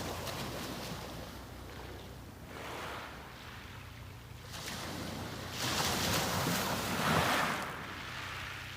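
Small sea waves breaking and washing up the beach in slow swells, the biggest one breaking about six seconds in.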